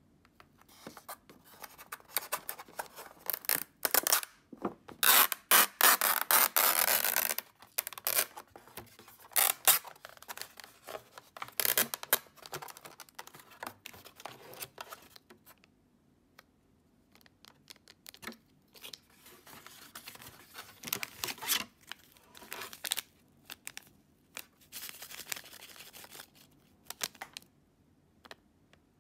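Paper lid of an Acecook instant yakisoba cup being peeled open, with crinkling and rustling as the lid and foil seasoning sachets are handled. The loudest part is a couple of seconds of continuous peeling about five seconds in, followed by scattered crinkles.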